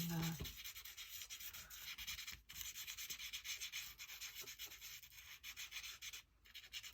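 Glue pen tip rubbing across folded origami paper: a steady scratchy rubbing with fast fine strokes, pausing briefly twice.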